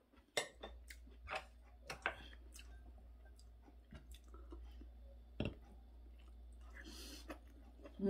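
A person eating: soft chewing, with scattered sharp clicks of a spoon and metal chopsticks against ceramic dishes. A faint low hum runs underneath.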